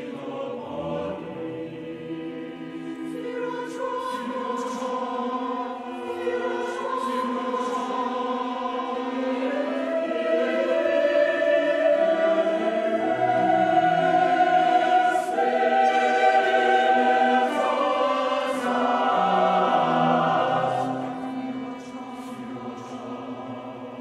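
Choir singing slow, sustained chords with crisp "s" consonants, swelling to a loud peak about halfway through and falling back to a softer level near the end.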